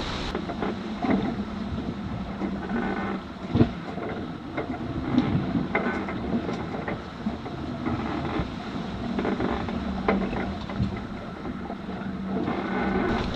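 Wind and sea noise aboard a sailing yacht under way, with scattered knocks and clicks and a low hum that comes and goes several times.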